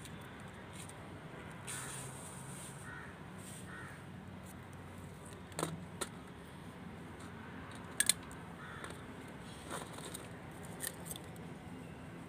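Faint handling noise as a cardamom garland is worked over a steel plate: scattered small clicks and taps, the loudest a sharp double click about eight seconds in.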